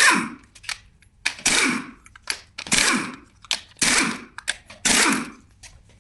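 Five heavy knocks, about one every 1.2 seconds, each with a short noisy tail, with lighter clicks between them.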